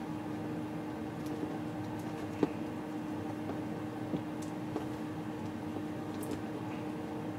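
Small plastic action-figure parts being handled, giving a few faint scattered ticks and one sharper click about two and a half seconds in, as an accessory is worked into the figure's hand. A steady hum runs underneath.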